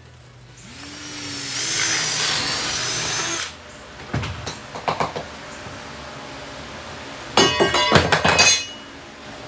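Power tool working wood: it spins up with a rising whine and runs for about three seconds. A few knocks follow, then a second, harsher burst of about a second near the end.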